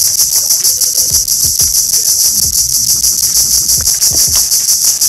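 Loud, shrill chorus of insects: a dense high buzz that pulses rapidly and keeps on without a break.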